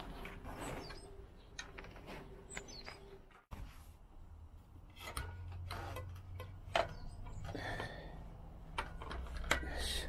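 Small birds chirping now and then over scattered light clicks and knocks from a road bike's headset and front wheel being handled with tools. The sound drops out for an instant about three and a half seconds in.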